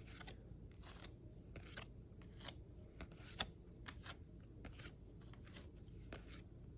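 Faint, irregular crisp clicks and rustles of Magic: The Gathering trading cards being handled and flipped through by hand, a few a second.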